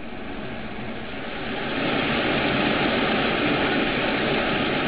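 Swollen river in flood: fast-moving floodwater rushing, a steady noise that grows louder about two seconds in.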